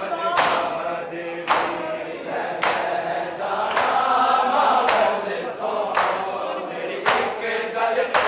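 Crowd of bare-chested men doing matam: the whole group strikes their chests in unison, with sharp slaps about once a second. Between the slaps, men's voices chant a noha in unison.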